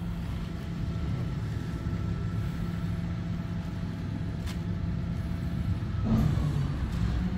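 Heavy truck engine idling in a steady low drone, with a faint higher whine above it that bends down about six seconds in.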